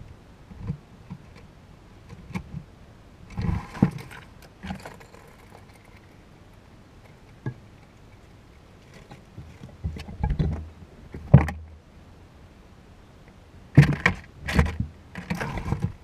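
Chipmunk moving about right by the microphone inside a wooden feeder house: irregular bumps, knocks and scrabbling rustles, coming in bunches, with a cluster of loud knocks near the end.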